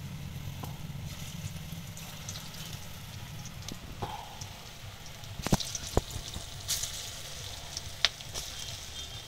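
Hot oil sizzling in a steel wok as small lumps of masoor dal and gandhal-leaf fritter batter are dropped in, with a few sharp pops from about halfway through.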